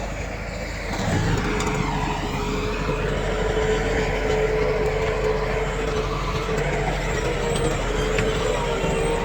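Diesel engine of heavy earthmoving equipment running steadily: a low engine drone with a steady high whine over it.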